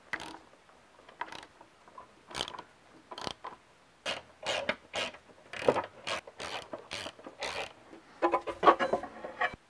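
Socket ratchet clicking in short runs as motorcycle front-end bolts are tightened, with scattered knocks of metal parts being handled and fitted.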